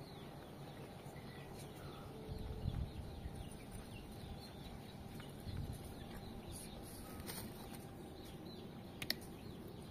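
Chickens clucking faintly, with a couple of soft low thumps about a quarter and halfway through.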